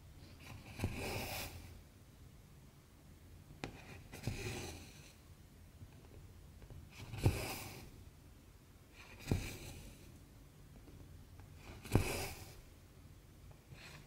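Cotton embroidery floss being pulled through 11-count cross-stitch fabric, about five stitches. Each stitch is a sharp tick followed by a swish of about half a second.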